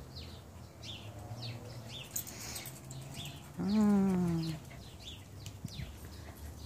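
Small birds chirping over and over. About three and a half seconds in comes a drawn-out, bleat-like cry about a second long, falling slightly in pitch: the loudest sound.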